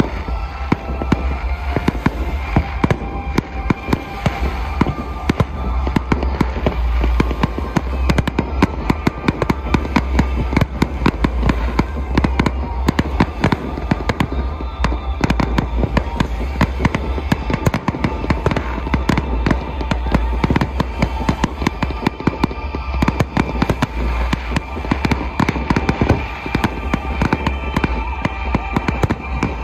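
Aerial fireworks display: a dense, continuous barrage of sharp bangs and crackles over a steady low rumble.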